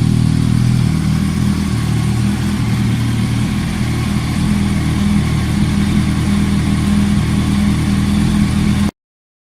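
2015 Yamaha R1's crossplane inline-four running steadily through an aftermarket exhaust, its note holding a fairly constant pitch. It cuts off abruptly to silence near the end.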